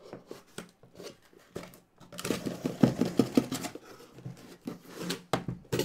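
Cardboard case and packaging being cut and pulled open by hand: a quick run of clicks, scrapes and rustles, busiest and loudest in the middle.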